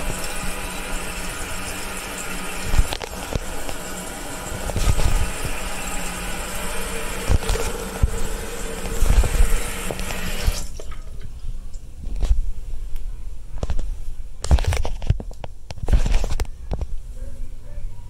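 Toilet tank refilling: a steady hiss of water through the fill valve, which shuts off suddenly about ten seconds in as the tank reaches full. Several sharp knocks follow near the end, typical of the ceramic tank lid being handled.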